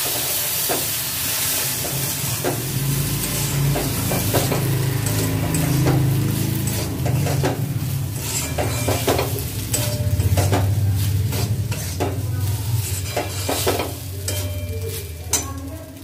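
A metal spatula scrapes and knocks against a steel kadai as ghee-fried rice is stirred, over a steady sizzle from milk just poured onto the hot rice. It eases off near the end.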